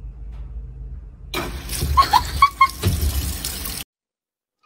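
Top-loading washing machine: a low hum, then a loud rushing noise starting about a second in, with a few short high chirps, cutting off suddenly near the end.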